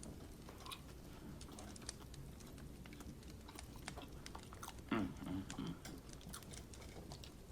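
Close-miked chewing of a soft sweet roll: many small wet mouth clicks and smacks, with a brief hum of the voice about five seconds in.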